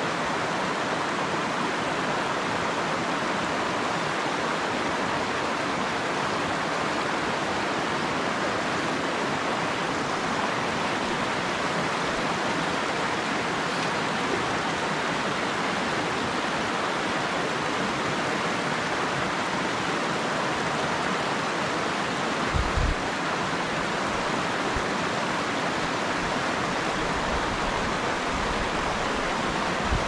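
Steady rush of a rocky mountain stream running over riffles and small rapids. A brief low thump comes about two-thirds of the way through.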